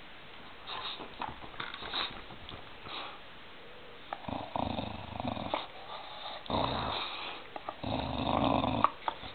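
Dog chewing on a sandal: light clicks of teeth on the sandal, then three noisy breaths about a second long each in the second half.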